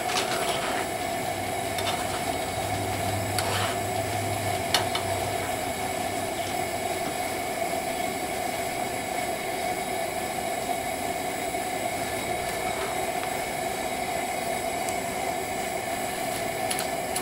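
Coleman gasoline camp stove burner running with a steady rushing hiss under a cast iron skillet of melting lead bullets. A few light clicks of a steel spoon against the skillet and bullet scraps stand out, the sharpest about five seconds in.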